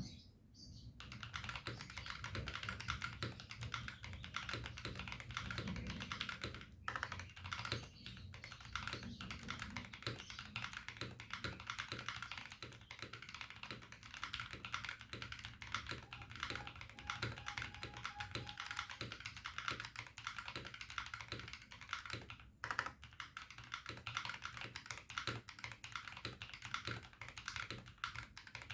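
VortexSeries VX5 Pro mechanical keyboard in an aluminium case, with Gazzew Boba U4T tactile switches, tape mod and silicone dampening, being typed on continuously. The keystrokes come in a quick, dense run, starting about a second in, with a few brief pauses.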